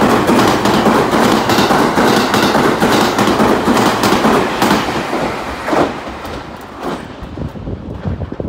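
JR Kyushu 787-series electric limited express train passing close by at speed without stopping: a loud rush of wheels on rail with repeated clacks over the rail joints. It eases off after about six seconds as the last car goes by.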